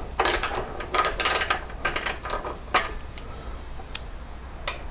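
Socket ratchet wrench clicking in several short runs of rapid clicks as bolts are loosened and backed out.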